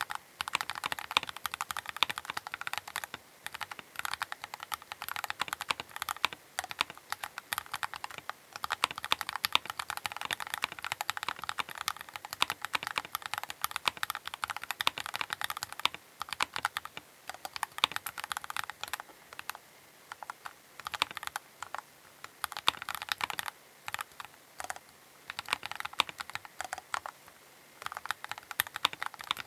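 Keychron K8 Pro mechanical keyboard being typed on: a fast, continuous run of keystroke clicks, broken now and then by short pauses.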